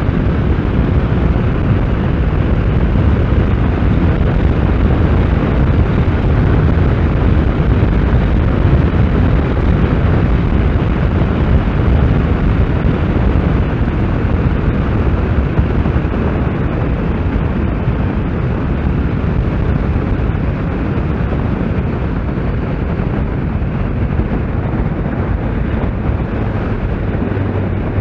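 Steady wind rush and rumble from riding a Kawasaki Z750S at road speed, its inline-four engine running underneath the wind noise on the microphone.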